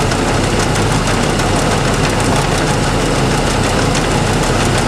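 1966 LeBlond 1610 Servo Shift heavy-duty engine lathe running under its 20 HP motor drive: a loud, steady mechanical hum and whir with a low drone, unchanging throughout.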